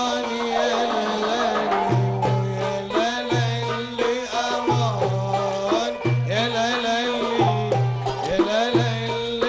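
Live Arabic ensemble music: qanun and oud play an ornamented melody over a hand-drum rhythm.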